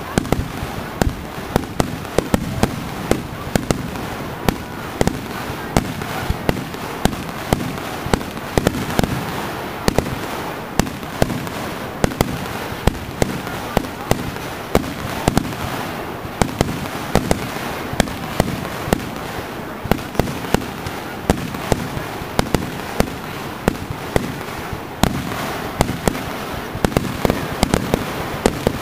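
Fireworks display: a rapid, irregular string of sharp bangs from bursting fireworks, several a second, over a continuous noisy background of more bursts and their echoes.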